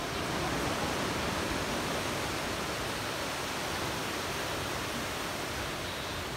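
Ocean surf breaking and washing up the shore: a steady, even rushing noise.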